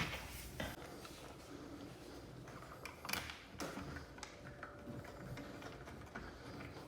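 Faint scattered clicks and light knocks of a plastic steering-wheel trim part being handled and fitted back into place, strongest about three seconds in.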